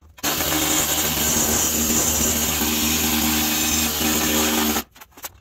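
Hand-held pneumatic tool run against a steel differential cover to clean it off. It starts suddenly, runs at one steady speed with a high hiss for about four and a half seconds, then cuts off sharply.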